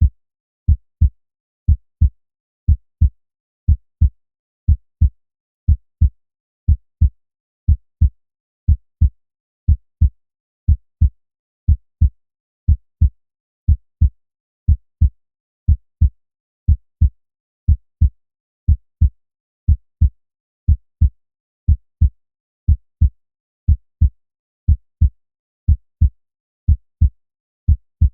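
Normal human heart sounds on auscultation: steady pairs of short, low thumps, S1 then S2 ("lub-dub"), repeating in a regular rhythm of about one pair a second.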